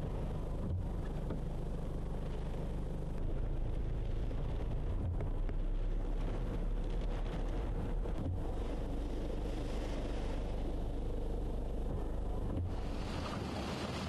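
Cyclone-force wind buffeting the microphone as a steady low rumble. About twelve and a half seconds in it changes suddenly to a brighter hiss of wind tearing through a palm tree.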